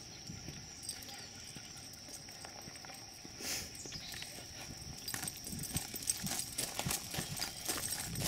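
Footsteps crunching on gravel and dirt as people walk along a road shoulder, getting louder and denser from about halfway, over a steady high-pitched tone.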